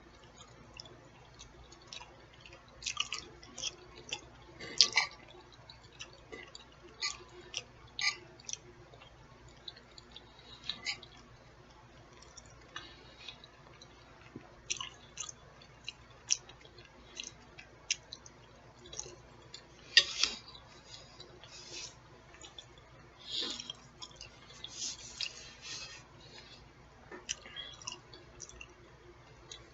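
A person chewing food close to the microphone: irregular wet mouth clicks and smacks, a few of them louder.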